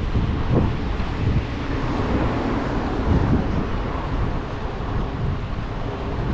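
Wind buffeting the microphone of a camera on a moving bicycle: a steady, noisy rumble heaviest in the low end.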